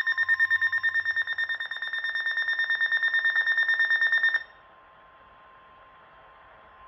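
Weather radio receiver's alert alarm: a high beeping tone pulsing rapidly, several times a second, for about four and a half seconds, with a fainter steady lower alert tone from the broadcast beneath it. The beeping stops and the lower tone carries on faintly, growing louder at the very end. It signals an incoming warning, here a tornado warning.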